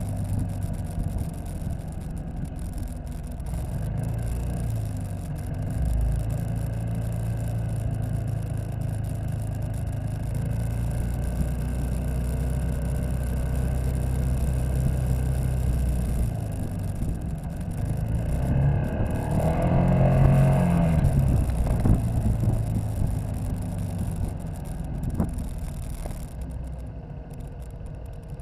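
Citycom scooter's engine running underway, heard from the pillion seat, with a steady low hum. About two-thirds of the way through it gets louder and its pitch rises and then falls, as it speeds up and then eases off.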